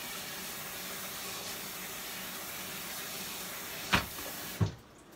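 Kitchen tap running steadily into the sink during hand washing, with two knocks about four seconds in; the water cuts off suddenly just after the second knock.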